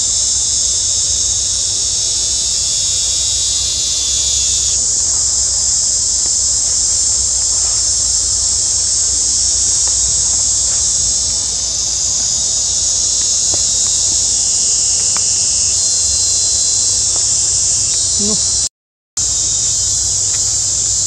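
A loud, steady, high-pitched chorus of insects from the surrounding forest, with a low rumble underneath. The sound cuts out completely for a moment near the end.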